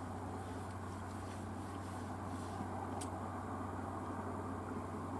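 Steady low outdoor rumble with a single faint click about three seconds in.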